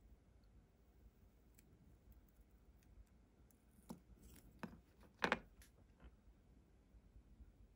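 A few small clicks and scrapes from tweezers and a small metal model part being handled, the loudest about five seconds in, over near silence.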